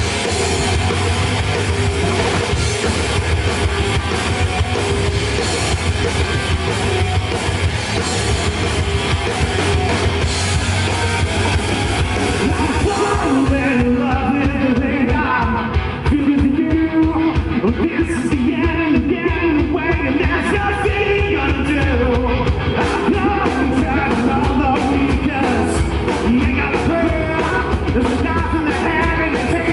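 Rock band playing live: electric guitar, bass and drum kit, loud throughout. About halfway through, the cymbal wash drops out and a melodic line and sharp, regular drum hits come forward.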